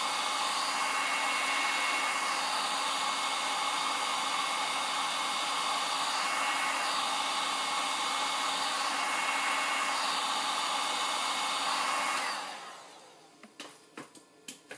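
Handheld heat gun blowing steadily, with a faint high whine over the rush of air. It is switched off about three-quarters of the way through and dies away, followed by a few light clicks.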